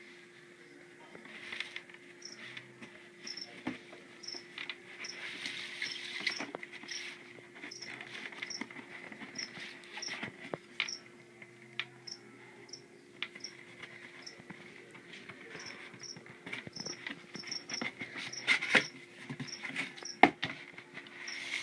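Small knocks, clicks and rustles of handling a cardboard box and the recording phone, over a steady low hum, with a faint high chirp repeating about every half second.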